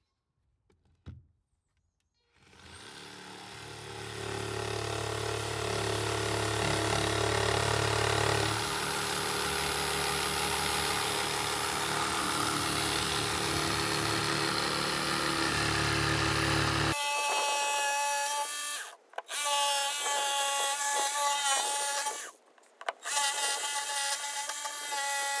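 Background music fading in, shifting chords about a third of the way through. Near the end it changes to a brighter tune with a clear melody and a few short breaks.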